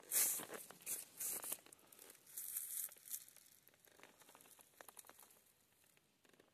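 Footsteps crunching through dry leaf litter and brushing undergrowth on a forest trail. A run of loud crackling steps comes in the first three seconds, then it turns to fainter rustles and ticks.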